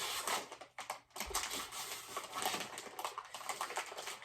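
Plastic chip bag crinkling as it is handled and torn open: a dense, irregular crackle with a short pause about a second in.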